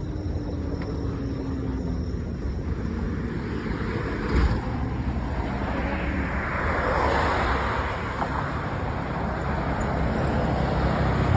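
Road traffic under a steady low rumble, with one vehicle going by, swelling and fading between about six and nine seconds in. A short knock comes about four and a half seconds in.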